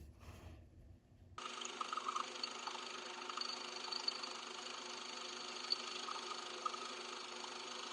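A machine running steadily with a continuous hum, starting abruptly about a second and a half in, after a little faint handling noise.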